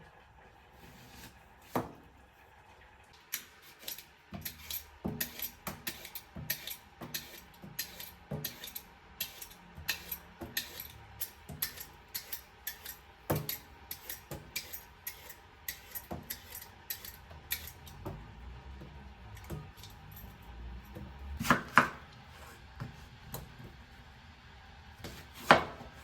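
Knife chopping food on a cutting board: a long run of quick, uneven knocks, about two or three a second, then two louder knocks near the end.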